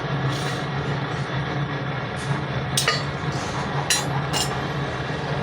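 A few sharp metallic clinks, about three of them in the second half, over a steady low hum.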